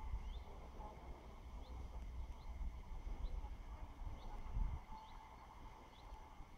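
A songbird calling in short, high, rising chirps repeated every second or so, over a low, uneven rumble.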